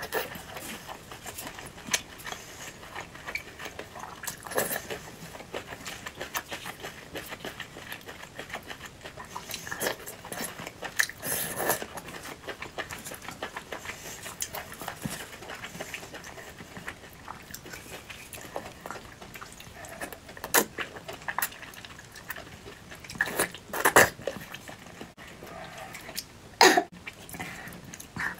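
Close-miked eating: chewing and biting on seafood skewers and dumplings, with occasional clinks of spoon and skewers on the dishes. The sounds come as irregular short, sharp bursts, a few louder ones in the second half.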